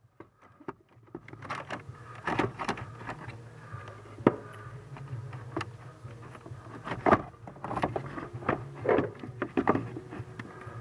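Irregular clicks, knocks and scraping of a heater core and the plastic parts of its heater case being handled and fitted into the heater box, with one sharp knock about four seconds in, over a steady low hum.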